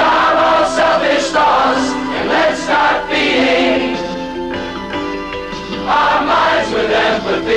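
A large mixed choir of men and women singing together, with the hiss of many voices' 's' sounds landing at once.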